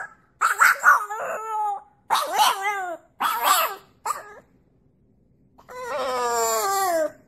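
French bulldog puppy howling: several short howls in quick succession, then after a brief pause one longer howl that slides down in pitch near the end.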